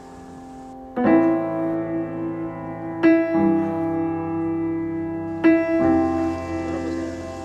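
Background piano music playing slow held chords. Three chords are struck in turn, each left to ring until the next.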